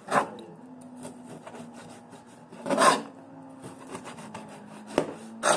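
Scraping and rubbing on a wooden cutting board during food preparation: three short rasping scrapes, the longest in the middle, and a sharp knock shortly before the end, over a steady low hum.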